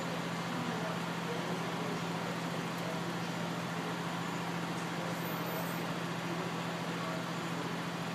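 Steady city street noise with a constant low hum, the kind left by idling vehicles or machinery; nothing stands out.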